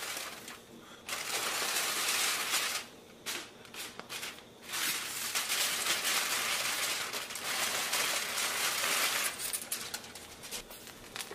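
Aluminium foil being peeled off a pan and crumpled up, crinkling loudly in two long stretches: one about a second in, and a longer one from about five to nine seconds, with a few short crackles between.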